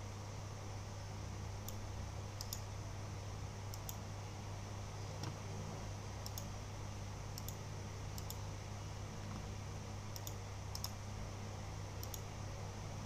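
Scattered light clicks of computer keys or a mouse, irregular and a few every couple of seconds, some in quick pairs, over a steady low electrical hum.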